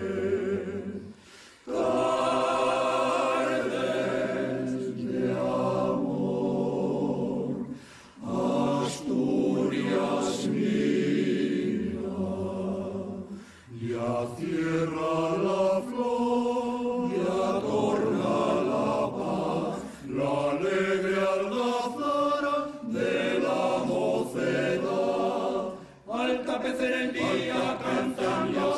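Men's choir of low voices singing a cappella in several-part harmony, in long sung phrases with short breaks between them.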